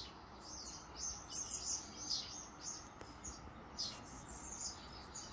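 Small birds chirping: a run of short, high chirps and twitters, one or two clusters every second.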